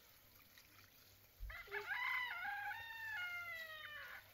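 A rooster crowing once: a single long call starting about a second and a half in and lasting nearly three seconds, holding steady pitches in steps before falling off at the end.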